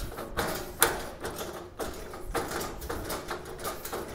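Locking swivel caster's threaded steel bolt being screwed into a cart leg by turning the whole wheel by hand: irregular metal clicks and scraping of the threads.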